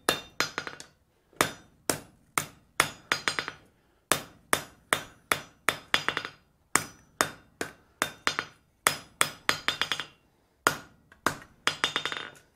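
Blacksmith's hand hammer striking a hot steel bar on an anvil in a run of blows, about two or three a second, each ringing briefly, with quick clusters of lighter taps between heavier ones and short pauses about a second in and near the end: finishing blows dressing up a forged boss and its shoulders.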